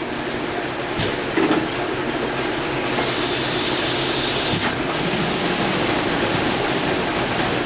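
Six-head automatic net weigh filling machine running, a steady mechanical clatter with a few sharp clicks. A hiss rises about three seconds in and stops suddenly a second and a half later.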